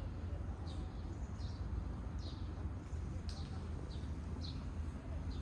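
A small bird chirping: short, high, repeated chirps coming about every half second to a second, over a steady low rumble.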